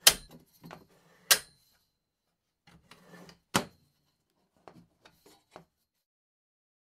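Folding card table being set up: three sharp clacks, the loudest about three and a half seconds in, with smaller knocks, rattles and a short scrape between them, ending in a few light taps.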